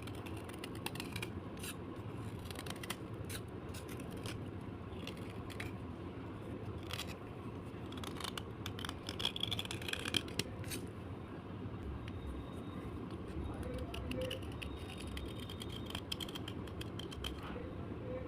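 Crisp crunching and scraping of slate: irregular sharp cracks and crackles over a steady low background hiss, thickest in the first half.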